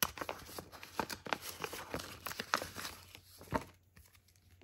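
Paper wrapping being torn open and crinkled by hand: a quick run of rips and crackles for about three and a half seconds, ending in one sharper snap.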